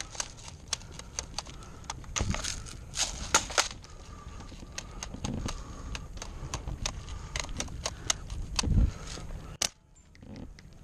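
Airsoft guns firing around the field: scattered sharp clicks and pops at an irregular pace, with a few low thuds of movement against the helmet camera.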